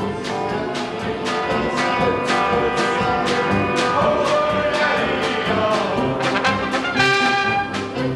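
Live polka band playing: trumpet and trombone carrying the tune over tuba, accordion, guitar and drums, with a steady beat.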